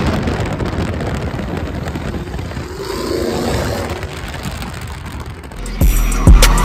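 A car at a street sideshow makes a loud, steady rushing noise from its engine and spinning tyres. About six seconds in, a song with a deep bass and a hard kick drum starts.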